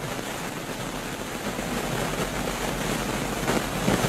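Storm wind gusting with heavy rain, the wind rumbling on the microphone, loudest in a strong gust near the end.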